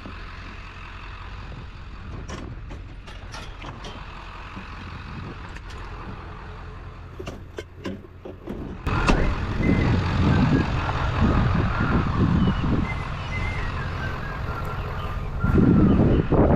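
A motor vehicle running, with scattered sharp clicks in the first half. It gets much louder and rougher about nine seconds in.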